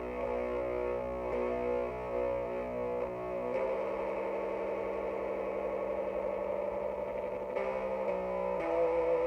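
Distorted electric guitar, a Jackson X Series SCX 3H through a 3-watt Orange Crush Mini amp boosted by a Boss ODB-3 overdrive, playing slow doom-metal chords held long and ringing. The chord changes about three and a half seconds in and shifts several more times near the end.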